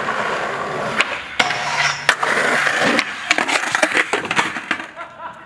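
Skateboard rolling on concrete, with a run of sharp clacks and knocks of the board hitting the ground, ending in a slam as the skater falls and slides.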